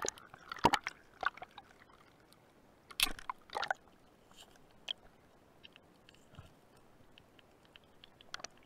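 Underwater sound picked up by a camera in a waterproof housing over a pebbly seabed: scattered sharp clicks and crackles, with a few louder knocks and rustles in the first four seconds and again near the end.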